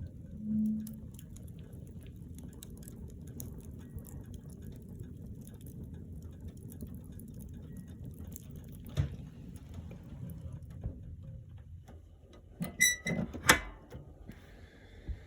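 Wood fire crackling in a wood stove over a low steady rumble, with one sharp knock about nine seconds in and a few louder knocks near the end.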